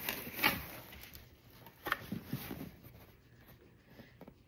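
A cardboard mailer box being picked up and handled: a few light knocks and rustles in the first couple of seconds, then it goes quiet.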